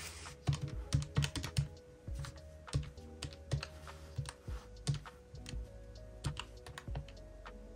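Fingertips tapping the plastic keys of a Casio scientific calculator, a quick irregular run of small clicks several a second, entering a calculation.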